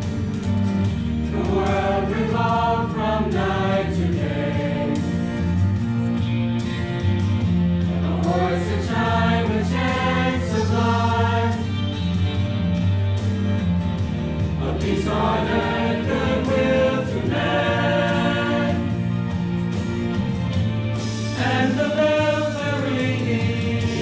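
Mixed-voice high school choir singing a Christmas song, with sustained low notes held beneath wavering upper melody lines.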